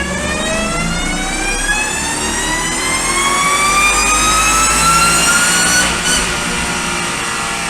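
Supercharger whine over a running car engine, climbing steadily in pitch as the engine revs up, then dropping sharply about six seconds in and starting to climb again.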